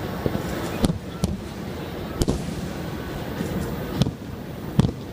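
Aerial fireworks shells bursting: five sharp booms at uneven intervals, the last one the loudest, over a steady low rumble.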